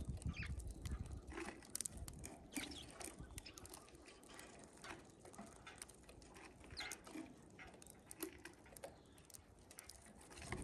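Faint scattered chirps and short taps from small birds, tits and sparrows, at a feeder, with a low rumble in the first second.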